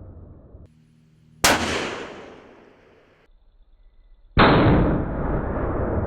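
Two .338 Lapua rifle shots. The first comes about a second and a half in, a sharp crack whose echo fades over a second or so. The second comes near the middle, a duller boom with a long rumbling tail.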